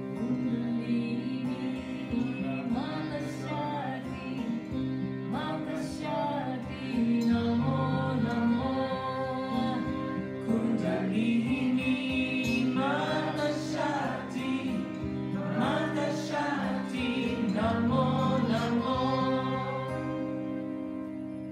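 Live kirtan music: a woman's voice singing over a steady harmonium drone, with acoustic guitar, flute and tabla. The music eases off near the end.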